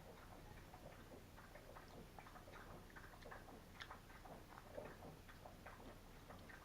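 Faint chewing: soft, irregular wet mouth clicks from a person eating a firm sardine in hot sauce.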